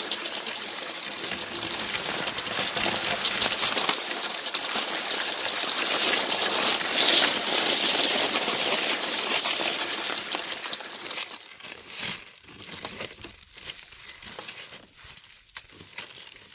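Skis sliding and scraping along a packed snow track, growing louder about six to eight seconds in, then stopping about eleven seconds in. After that, short crunches of snow as a fallen child shifts about in the snow trying to get up.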